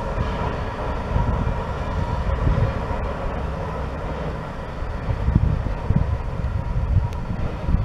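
Climax geared steam locomotive running along the track and fading into the distance, with wind buffeting the microphone in low gusts.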